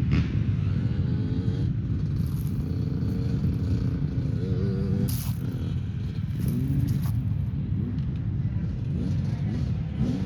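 Engine of an off-road race vehicle running under a heavy low rumble, its pitch rising and falling as the throttle is worked.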